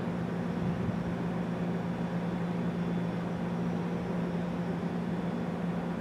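Federal Signal STH-10A mechanical siren giving a low, steady hum as its slowly turning rotor winds down near the end of its run, over a hiss of wind and outdoor noise.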